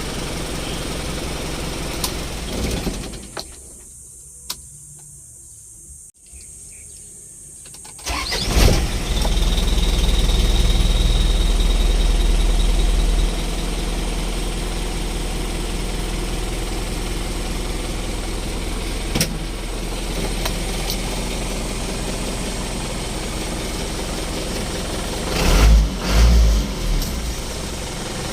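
Isuzu Elf truck engine running, then shut off about three seconds in and restarted about eight seconds in. It starts at once, runs fast for a few seconds, then settles to a steady idle, with a few brief revs near the end. This is a restart test of a hard-starting fault traced to a loose battery cable.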